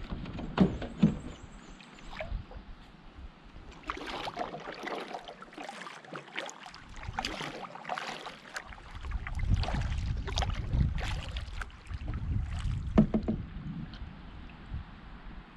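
Canoe paddling: the paddle blade dipping and pulling through the water with irregular splashes and drips, a few sharp knocks, and low wind rumble on the microphone at times.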